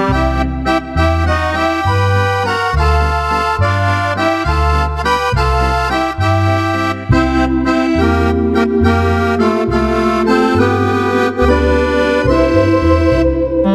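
A Roland 4x digital accordion playing a tune in an accordion voice. The melody runs over a steady bass line that alternates note by note.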